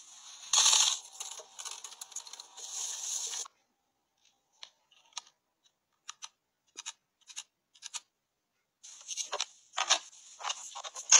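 Rustling of a fabric floor rug being unrolled and pressed flat, then a few scattered light clicks of buttons pressed on a plastic remote control, then a burst of rustling and knocks near the end.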